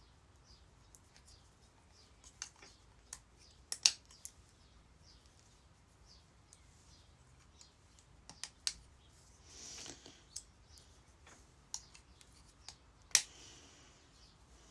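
Scattered small sharp clicks of screwdriver bits and a plastic bit holder being handled and slotted in, the loudest about four seconds in and again near the end, with a brief soft rustle about two-thirds through.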